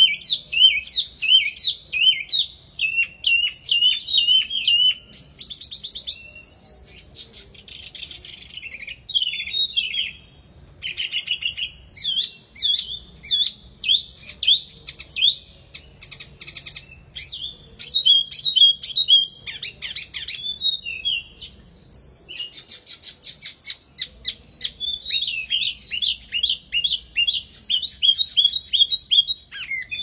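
A caged wambi mini songbird singing almost without a break: fast, varied phrases of high chirps, whistled notes and rattling trills, with a few short pauses.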